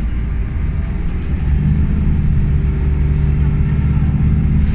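Nova Bus city bus's engine and drivetrain heard from inside the passenger cabin: a steady low drone that gets louder about a second and a half in as the bus accelerates.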